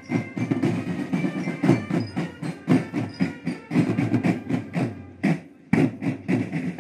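Military marching drum band beating fast on bass drums and tenor drums, in dense rapid strikes, with a brief break about five seconds in before the drumming resumes.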